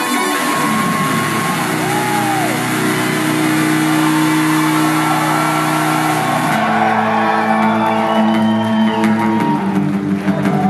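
Amplified acoustic-electric guitar playing a live instrumental break in held notes and chords, with the chord changing about two-thirds of the way through. A few audience whoops and shouts ride over it.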